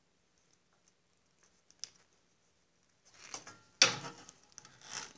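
Near silence, then a few small clicks and a sharp metallic clatter about four seconds in, followed by more light knocks: a hand tool and wire being handled while an eyelet connector is fitted.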